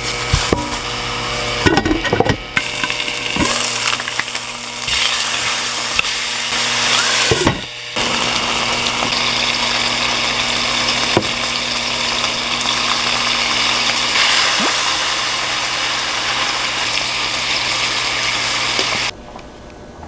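Electric kitchen blender running with a steady whir after a few knocks. It stops briefly a few seconds in, starts again, and cuts off suddenly near the end.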